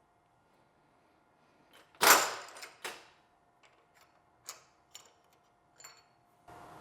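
Clicks and knocks of tools and steel parts being handled, with a louder clank about two seconds in and another just after. A steady, even noise starts near the end.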